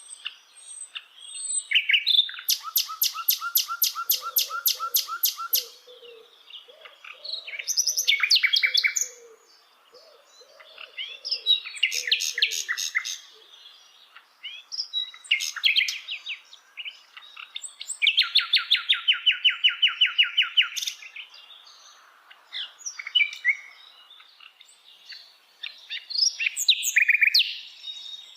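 Sikatan londo (brown-chested jungle flycatcher) singing: a run of phrases every few seconds with short pauses between them. Two long phrases are rapid, even trills of many quick repeated notes, and the shorter ones are varied chattering bursts.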